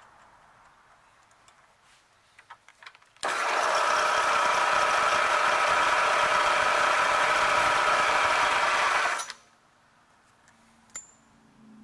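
Drill bit cutting into the rim of a metal wheel blank held in a vise: a loud, steady, whining cut that starts suddenly about three seconds in and stops about six seconds later. A few light clicks come before it as the part is set against the stops, and there is a single sharp metallic tick near the end.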